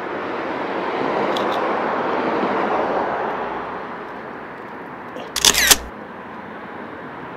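Street traffic passing, swelling and then fading over the first few seconds. About five and a half seconds in comes a loud camera shutter sound lasting about half a second.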